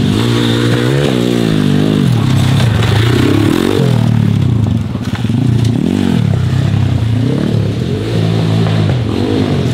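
MRF 140 pitbike's 140 cc four-stroke single-cylinder engine revving up and down over and over as it is ridden on a dirt trail, its pitch rising and falling about once a second.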